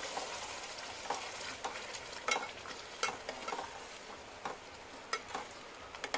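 Spatula stirring chickpeas in a thick masala gravy in a metal pot, clicking and scraping against the pot about once a second, over a steady sizzle from the gravy cooking on the flame.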